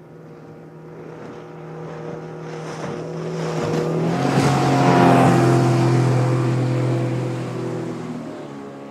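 A motor vehicle passing by: its engine hum grows louder, peaks about halfway through, then fades, the pitch dropping as it goes past.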